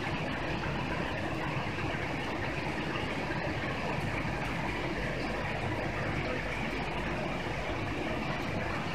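Steady low rumble and rushing noise of fire engines running at a fire scene, their engines and pumps going without a break.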